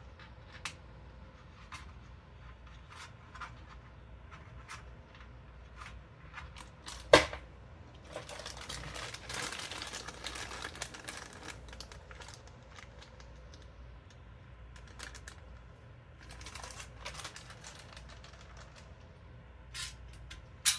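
Small metal parts clicking and clinking, with one sharp metallic clink about seven seconds in and a few seconds of scraping just after: hand work on a motherboard standoff in a PC case.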